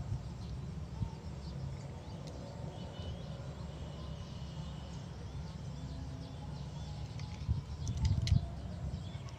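Faint bird chirps and calls over a steady low rumble like wind or handling noise on the microphone, with a few knocks and thumps about 8 seconds in.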